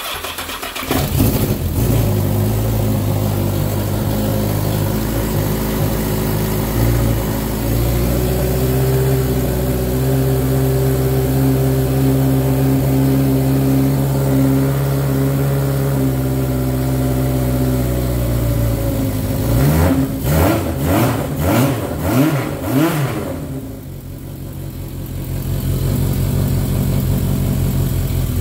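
1978 Yamaha XS1100E's air-cooled inline-four starting from cold on choke. It catches at once and runs at a steady fast idle, then is revved quickly about five times around twenty seconds in. It dips briefly and settles back to a steady idle.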